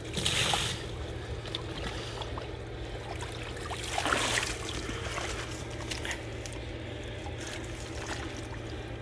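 Water splashing in two short bursts, one near the start and one about four seconds in, over a steady low hum.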